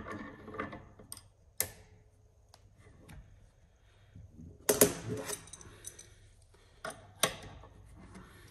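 Steel mole grips (locking pliers) being clamped onto a brass compression fitting on copper pipe: a few sharp metallic clicks and a loud clattering rattle about halfway through, as the jaws are set and locked on the nut.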